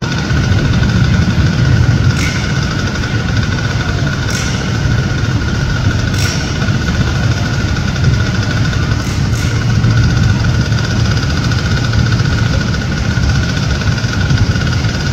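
Several small 50–90cc youth ATV engines idling together, a steady low running sound with a thin steady whine above it. A few brief clicks stand out at intervals.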